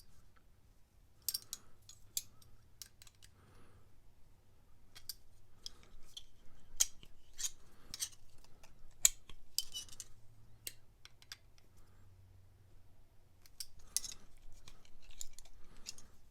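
Vintage Great Neck steel adjustable pliers being worked by hand: an irregular run of sharp metal clicks and snaps as the jaws open, close and slide in the pivot.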